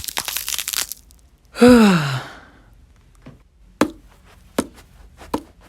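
Foley track: a dense rustle, then a falling, voiced sigh or groan, then a few separate soft taps under a second apart, pens tapped on a notebook standing in for slippered footsteps.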